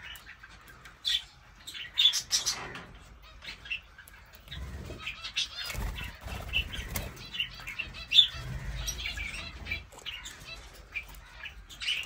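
Small caged parrots chirping in short scattered calls, with wings flapping and fluttering.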